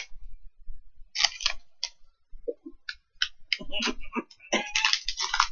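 Plastic candy wrapper crinkling and rustling in short, scattered bursts as a bag of peach gummies is handled, with a few sharp ticks. The crinkling grows denser and louder near the end.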